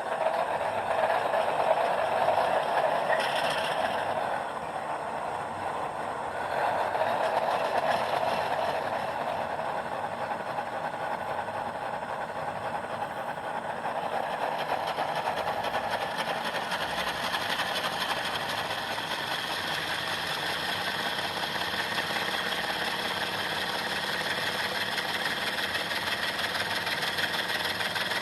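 GE GEVO diesel locomotive sound played by a DCC sound decoder through the pair of ZIMO speakers in an HO scale InterMountain ES44AC, running louder in the first several seconds and then settling to a steady idle. It sounds much cleaner, the crackle cured by rewiring the two speakers correctly, with only some minor crackling every now and then.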